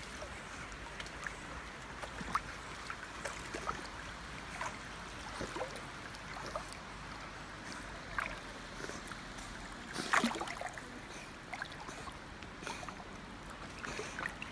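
Water splashing and lapping as a Newfoundland puppy paddles through a shallow stream, over a steady background of running water, with a louder cluster of splashes about ten seconds in.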